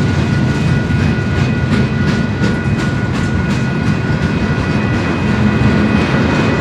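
Freight train's boxcars and refrigerator cars rolling past: a heavy, steady rumble with wheels clicking over rail joints, and steady high-pitched tones over it.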